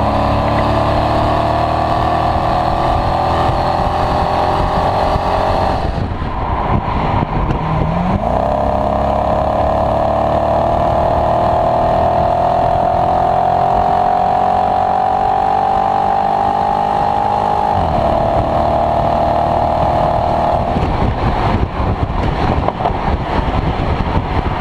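2014 Dodge Charger SRT8's 6.4-litre HEMI V8 accelerating through the gears. Engine pitch climbs, drops at an upshift about six seconds in, then climbs steadily for about ten seconds more. It falls away sharply near the end and holds steady briefly, under steady road and wind noise.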